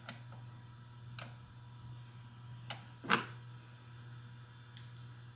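A few light clicks and taps, the loudest about three seconds in, from a hand screwdriver working on the belt clip of a cordless impact driver while the clip is moved to the other side.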